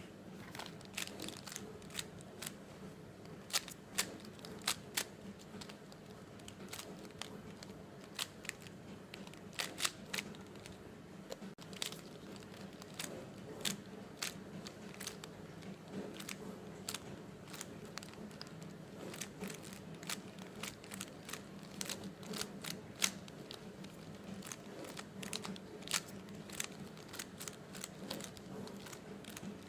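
Speed cube being turned fast by hand during a solve: rapid irregular plastic clicks and clacks as the layers snap round, some bursts louder than others, over a faint steady hum.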